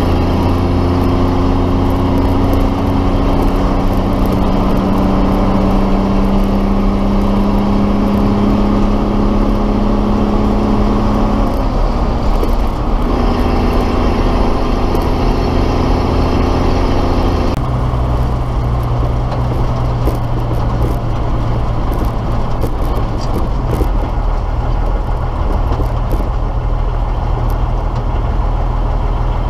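1973 M342A2 2½-ton army truck's multifuel diesel engine pulling through the gears while driving. The engine note climbs slowly, breaks for a gear change about twelve seconds in, and climbs again. At about seventeen seconds it drops to a lower, steady running note.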